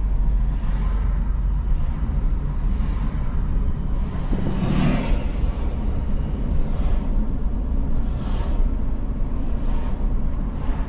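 Road noise from inside a moving car: a steady low rumble of engine and tyres, with several vehicles swishing past every second or two, the loudest about five seconds in.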